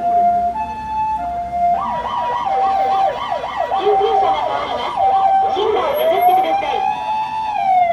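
Japanese ambulance siren of the Sapporo Fire Bureau. It opens with the alternating high-low two-tone, then about two seconds in switches to a fast yelp of rapid up-and-down sweeps over the two-tone. Near the end a slower wail rises, holds and starts to fall.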